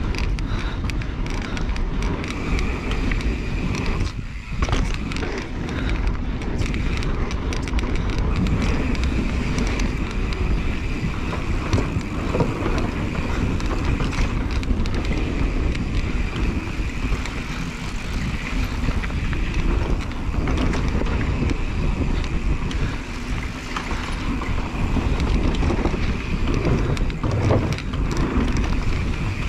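Rocky Mountain Element C70 full-suspension mountain bike descending a dirt singletrack: knobby tyres rolling over packed dirt, with a steady stream of small knocks and rattles from the bike over bumps.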